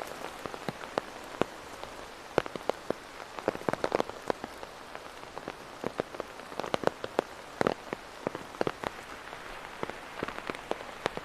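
Rain falling on an umbrella held close to the microphone: sharp, irregular taps of single large drops, several a second, over a light steady hiss of rain.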